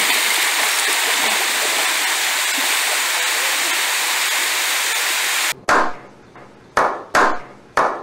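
Steady rush of a small waterfall cascading into a rock pool, with a swimmer splashing in it. About five and a half seconds in it cuts off abruptly, and a few slow, separate hand claps follow.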